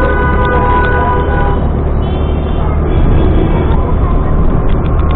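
Motorcycle riding noise, a steady low rumble of engine and wind, with a vehicle horn sounding for about the first second and a half and a short high horn note about two seconds in.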